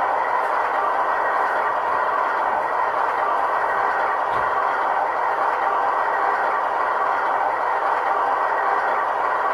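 ESU LokSound decoder in a model diesel locomotive playing a recorded GE 7FDL-16 diesel engine running steadily after start-up, heard as a thin, even rattle through the model's small speaker.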